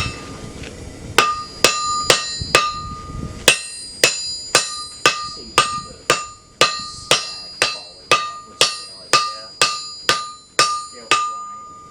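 Hand hammer striking hot steel on an anvil, about twenty steady blows at roughly two a second, each with a bright metallic ring, as a curve is forged into a hatchet blank. A low rumble runs under the first few blows and stops about three and a half seconds in.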